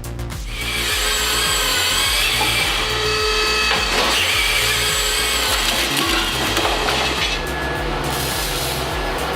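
A power tool cutting wood, a high whining noise that comes in about a second in and drops away near the end, over background music with a steady bass line.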